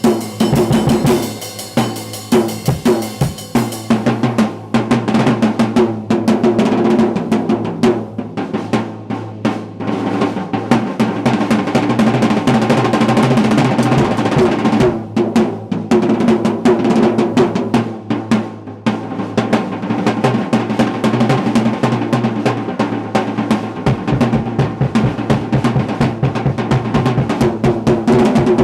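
Drum kit played solo: a dense, rapid stream of snare, tom and bass drum strokes with rolls. Cymbals ring in the first few seconds, then drop out.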